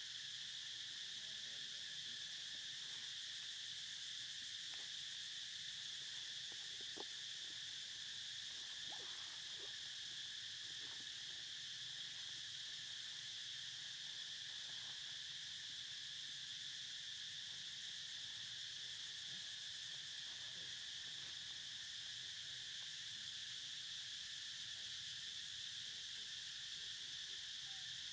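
Steady, high-pitched insect chorus, an unbroken drone throughout, with a few faint, brief sounds beneath it.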